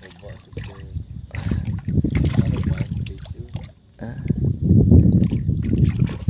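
Water sloshing and trickling around a mesh fish keepnet as it is shifted about in the water, in irregular surges with a brief lull near the middle.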